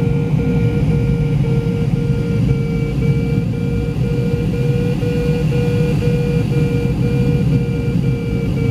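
Glider's audio variometer beeping at a steady pitch, about two to three beeps a second, over a steady rush of air past the cockpit. The regular beeping is the vario's signal that the glider is in rising air.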